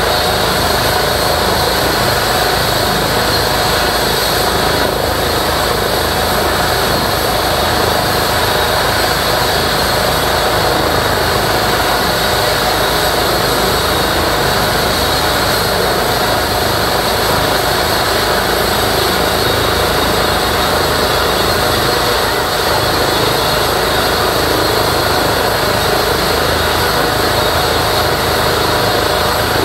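Eurocopter EC135 air ambulance helicopter running on the ground with its rotors spun up before lift-off: a loud, steady turbine whine over the rotor noise, unchanging throughout.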